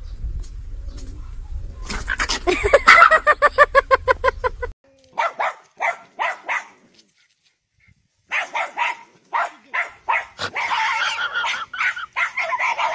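Dogs barking: a fast run of high yaps, then after a cut a small dog barking in short repeated bursts, with a silent pause of about a second in the middle.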